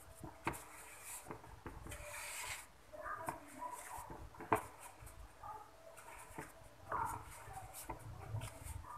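Silicone spatula spreading and smoothing thick cake batter in a metal tube cake pan: soft scraping and rubbing, with a few light ticks of the spatula against the pan.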